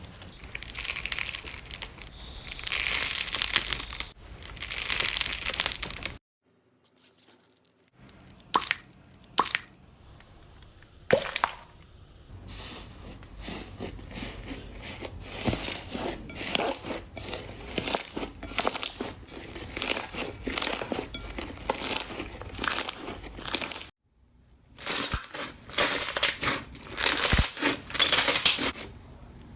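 Slime being squeezed and pressed by hand, with crunchy crackling in repeated bursts. There are a few sharp pops between two short breaks.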